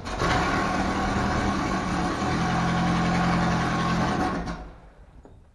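A motor running loudly and steadily with a low hum, its pitch shifting slightly about two seconds in. It starts suddenly and stops after about four and a half seconds.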